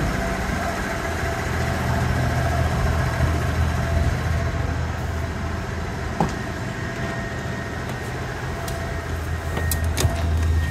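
Supercharged four-cylinder engine of a 1997 Subaru Sambar Dias II kei van idling with a steady low hum. A single knock about six seconds in and a few light clicks near the end.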